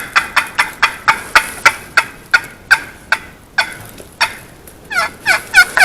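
Wild turkey calling: a long run of sharp, short yelping notes, about three a second, each falling in pitch, with a brief pause partway and a quicker cluster near the end.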